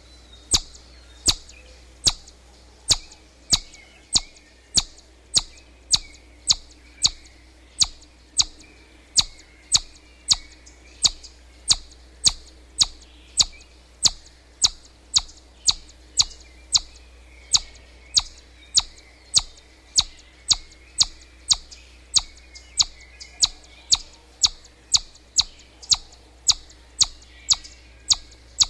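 Chipmunk calling: a sharp, high chip repeated evenly, about one and a half a second, without a break. Faint birdsong and a low steady hum sit behind it.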